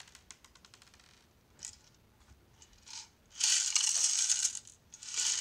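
Lego Technic cement mixer being cranked: a fast run of small plastic gear clicks, then loose small Lego pieces rattling and sliding in the turning drum, loudest for over a second just past the middle and again briefly near the end.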